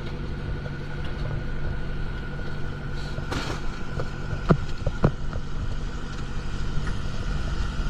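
A boat engine running steadily, with a short rush about three seconds in and two sharp knocks about a second later.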